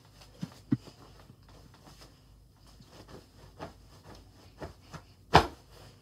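Scattered soft knocks and bumps from a child moving about on a bed, with one much louder sharp thump near the end.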